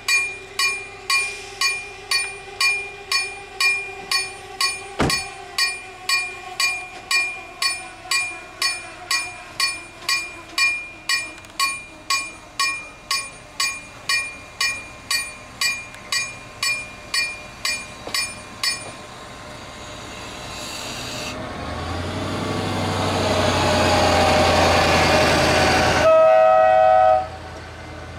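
A level-crossing warning bell rings about twice a second, then stops. A train then approaches with a rumble that grows louder, and sounds its horn briefly near the end, the horn cutting off abruptly.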